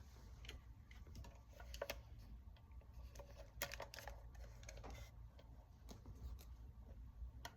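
Faint, irregular clicks and light taps of handling, over a steady low hum.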